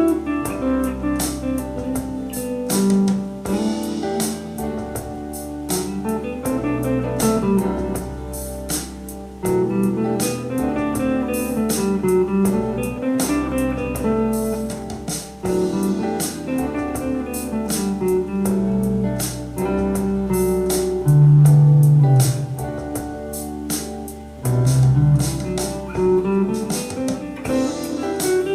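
Electric guitar playing runs of notes up and down an E minor scale over a backing track with drums and bass.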